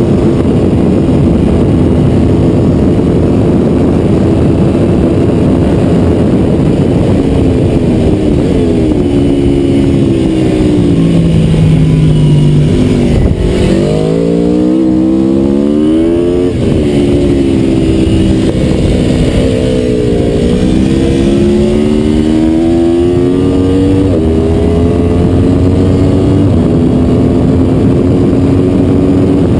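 Aprilia Tuono V4 motorcycle engine at speed, heard from the bike with wind noise over it. About a third of the way in the revs fall in steps as it brakes and shifts down for a slow corner, then it accelerates hard from about halfway, the pitch climbing and dropping sharply at each of four upshifts.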